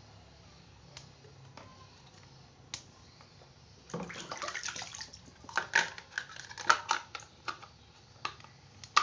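Water sloshing and splashing in a plastic basin as hands work in it about four seconds in, followed by a quick run of sharp plastic clicks and snaps as the parts of a small submersible water pump are fitted back together after cleaning.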